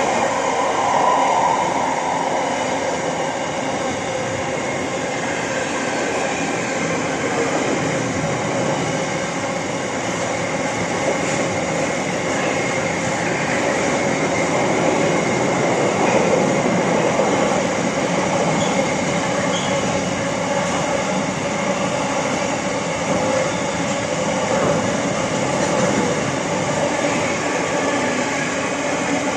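Container freight train's wagons passing on the near track, a steady, continuous noise of steel wheels rolling on the rails.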